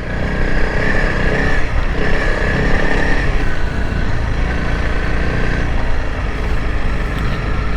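Honda CRF300L Rally's single-cylinder engine running under way as the bike rides through soft sand, the engine note shifting a little up and down.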